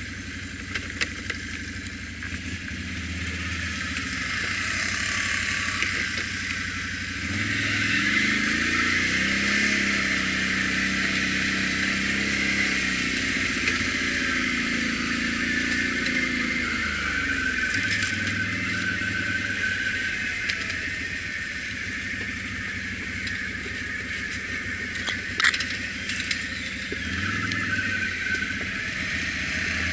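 ATV engine running as it is ridden along a trail, its revs rising and falling, with a few sharp knocks about two-thirds of the way through.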